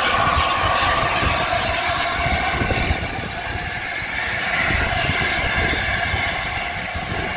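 Steam-hauled passenger train rolling slowly away behind LNER A4 locomotive 4498: a steady low rumble of the coaches' wheels on the rails, with irregular knocks, that drops a little about three seconds in.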